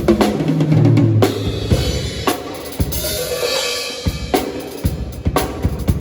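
Acoustic drum kit played solo: a fill down the toms from high to low in the first second or so, then kick drum and snare hits with a cymbal ringing out around the middle.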